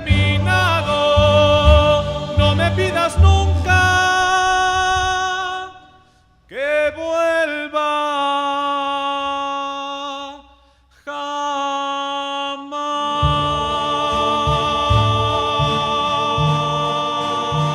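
A rondalla, a Mexican serenade group of voices and guitars, singing and playing a romantic ballad in long held chords over a bass line. It breaks off briefly twice, then settles into one long sustained chord.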